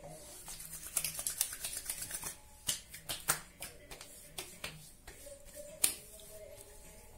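Hands patting and slapping aftershave onto freshly shaved skin: a quick run of sharp pats, then scattered single slaps, the loudest one near the end.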